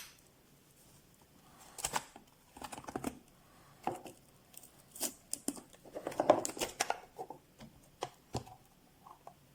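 Irregular light clicks, taps and knocks, with a busier cluster about six seconds in: parts of a burr coffee grinder being handled.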